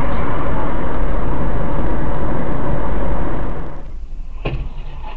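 Loud, steady road and engine noise inside a moving car picked up by a dashcam microphone, cutting off abruptly about three and a half seconds in to a much quieter background with a single sharp knock about a second later.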